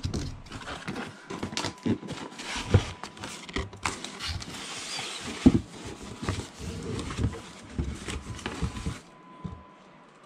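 Cardboard packaging being handled: a printed figure box scraping and knocking as it is lifted out of its cardboard shipping box, with one louder knock about halfway through. The handling stops about a second before the end.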